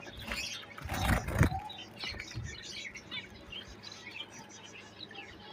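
Zebra finches chirping with many short, high calls, with a loud thud about a second in.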